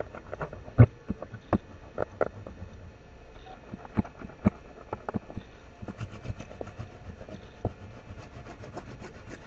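Irregular knocks and taps of crayons and a cardboard box being handled on a table close to the microphone, with a run of faint quick ticks in the second half.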